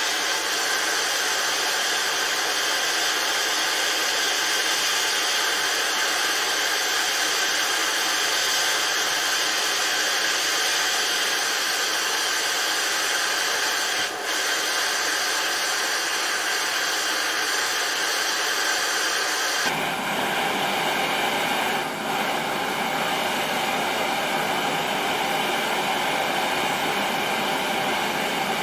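Steady hiss of a handheld gas torch's flame burning while an O1 tool-steel blade is heated in it for hardening. About two-thirds of the way through the hiss turns lower and fuller.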